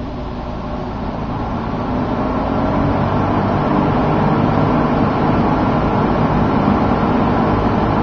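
McGraw Edison Eskimo two-speed box fan running on its high setting: its motor hum and the rush of air off the blades grow louder over the first few seconds as it comes up to speed, then hold steady.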